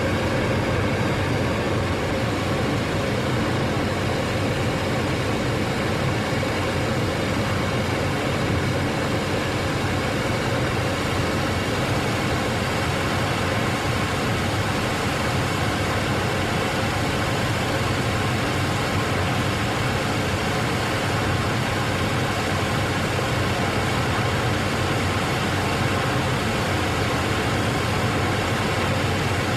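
Exhaust fan running steadily at full speed: an even rush of air over a low, constant motor hum.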